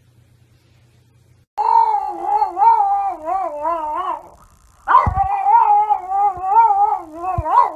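French bulldog howling: a long, wavering howl that starts about a second and a half in, breaks off briefly, then starts again and runs on with its pitch wobbling up and down. A few low thumps come during the second howl.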